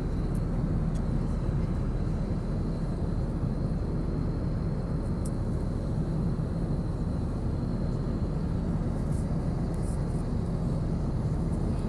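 Steady drone of an airliner cabin in cruise: engine and airflow noise, with a faint high whine that stops about eight seconds in.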